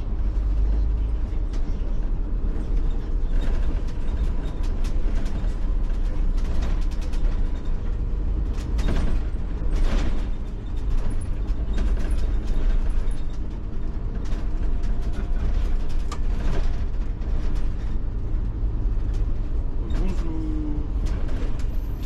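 Iveco Urbanway 12 city bus under way, heard from on board: a steady low engine and road rumble, with frequent rattles, clicks and creaks from the body and fittings.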